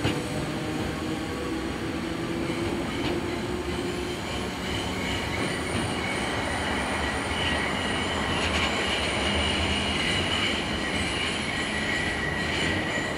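Merseyrail Class 507 third-rail electric multiple unit moving along the platform: a steady rumble of wheels on rails with a low motor hum that fades in the first few seconds. Steady high wheel squeal comes in from about five seconds in.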